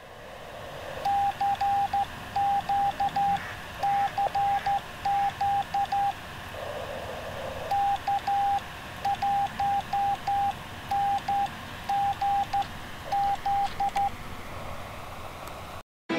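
Morse code sent by hand on a portable ham radio transceiver: a single steady beeping tone keyed on and off in dots and dashes, with a pause in the middle, over a steady hiss.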